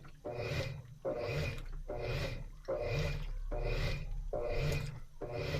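Washing machine in its wash cycle, motor and agitator working in even back-and-forth strokes a little under a second apart, each stroke with a hum and a swish of water.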